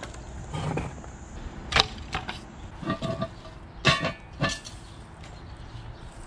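Several sharp wooden knocks and clatters of split kindling being dropped onto a pile, with a couple of short metallic clanks about three and four seconds in as a cast iron Dutch oven is set down.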